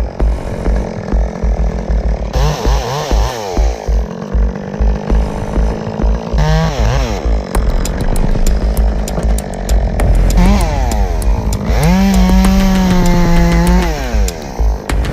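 Two-stroke chainsaw idling with a low putter and revved up several times, rising in pitch and dropping back. The last rev is held at full throttle for about two seconds before falling back to idle.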